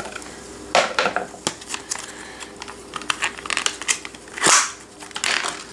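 Stiff clear plastic retail packaging being handled and opened, crinkling with scattered clicks, as a phone case is slid out of it. There is a louder rustle about four and a half seconds in.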